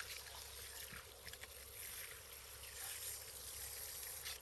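Water being poured onto the soil around a newly planted grape vine, a steady splashing hiss that stops near the end.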